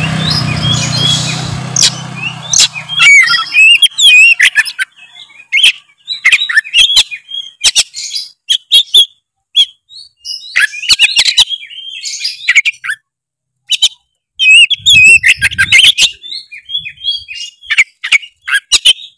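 Oriental magpie-robin (kacer) in full song: loud, fast phrases of varied whistles, warbles and sharp chips, delivered in bursts with sudden breaks between them.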